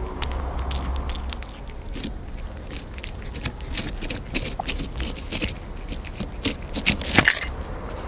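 Kittens eating wet cat food right at the microphone: scattered wet chewing and licking clicks and smacks off the plate, with a louder scrape about seven seconds in, over a steady low rumble.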